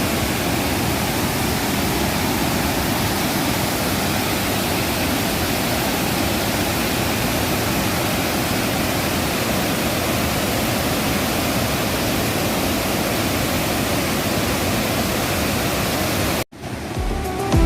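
Steady rushing roar of a waterfall. It cuts off abruptly near the end, and music with distinct notes starts up.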